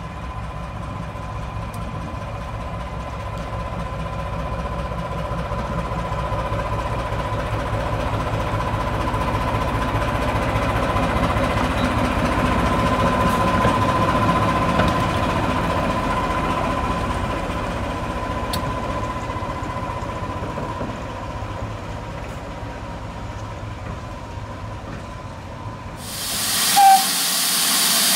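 Class 14 diesel-hydraulic locomotive D9516 running past, its engine rumble with a steady whine over it growing louder to a peak around the middle, then fading. Near the end this gives way to a loud steam hiss from Great Western Saint-class steam locomotive No. 2999, with a brief loud blip about a second after the hiss starts.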